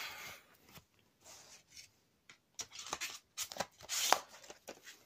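A plastic DVD case being handled and closed: scattered clicks of the plastic and brief rustling against fabric, with the sharpest click about four seconds in.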